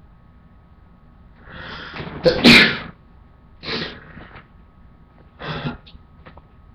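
A man's induced sneeze, brought on by tickling inside the nostril with a cotton swab. A breath is drawn in over about a second, then one loud sneeze comes about two and a half seconds in. Two shorter, quieter bursts follow about one and three seconds later.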